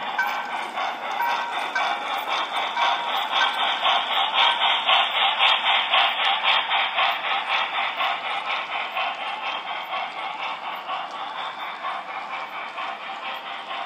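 Broadway Limited CB&Q 2-8-2 Mikado model steam locomotive's DCC sound decoder chuffing in a steady rhythm, with the running clatter of the model train rolling on the track. It is loudest a few seconds in, then slowly fades as the train goes by.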